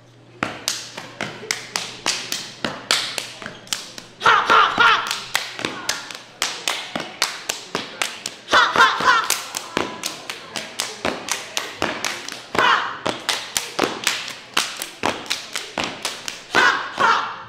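Sorority step routine: hand claps, body slaps and foot stomps struck in unison at a steady rhythm, about three a second. Four loud bursts of group shouting break in at intervals.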